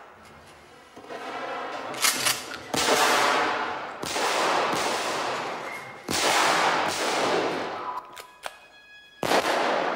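Gunshots from a film soundtrack played over loudspeakers: about five loud shots a second or more apart, each ringing on for a second or two in a large echoing hall.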